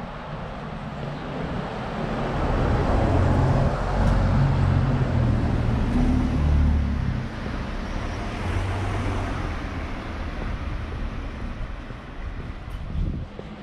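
A car driving past close by on a narrow street. Its engine and tyre noise build up, are loudest for a few seconds, then fade to a lower background rumble.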